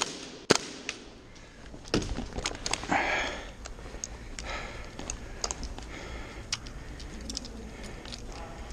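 Airsoft gear handling noise: two sharp knocks at the start, one more about two seconds in, then a rustle and a run of light clicks and rattles from the rifle and its sling hardware as the player shifts the gun.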